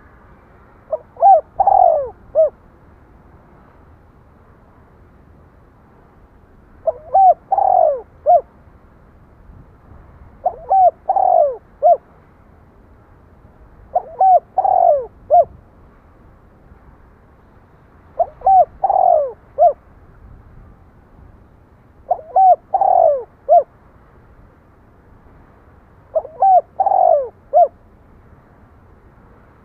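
Spotted dove cooing: seven repeated three-note phrases, a short note, a longer loud note and a short closing note, about every four seconds after a pause early on.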